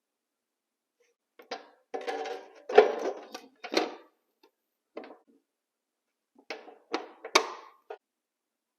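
A series of separate knocks and clunks from a metal-cutting chop saw and its parts being handled during unboxing and setup. The loudest clunk comes about three seconds in, and another cluster comes near the end.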